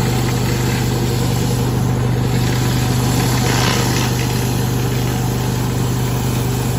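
Pressure washer's gas engine running steadily under the broad hiss of the high-pressure water spray on concrete.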